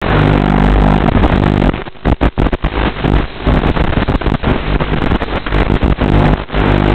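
Steady low electrical buzz with a stack of hum tones, broken by choppy crackling dropouts from about two to six and a half seconds in: interference noise on an analog FPV video link's audio channel.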